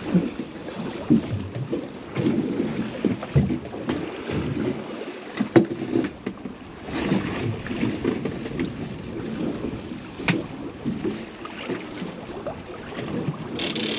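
Uneven wind and water noise aboard a small fishing boat drifting with no engine note, with a couple of sharp knocks about five and a half and ten seconds in.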